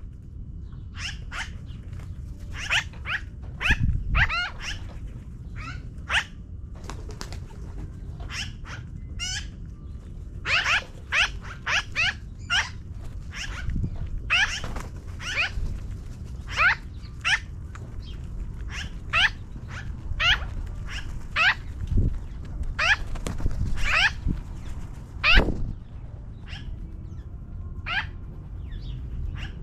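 Magpies calling from a tree: many short calls that sweep downward in pitch, coming in quick runs of several a second, over a steady low rumble.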